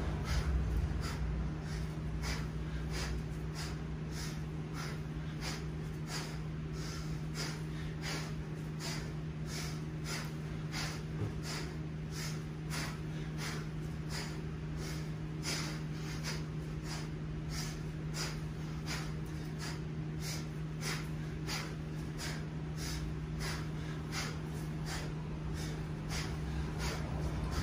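A man's hard, rhythmic breathing under the effort of continuous kettlebell snatches: short, sharp breaths about twice a second, over a steady low hum.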